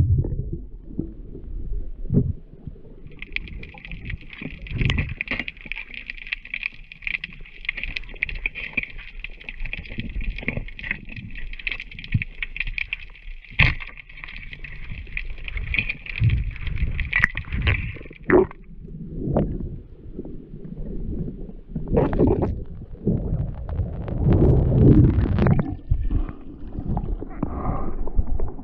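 Underwater water noise on a diver's camera: a low rumble with scattered knocks. A steady high-pitched whine starts about three seconds in and stops about eighteen seconds in. Louder splashing and sloshing follow near the end as the diver reaches the surface.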